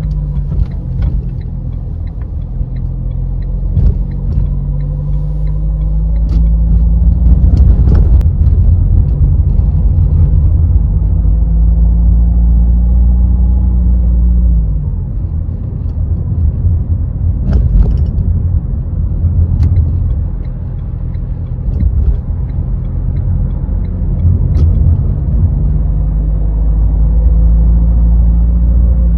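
A car engine and road rumble while driving in city traffic. The engine note rises as the car speeds up, eases off about halfway through, then builds again, with a few brief knocks.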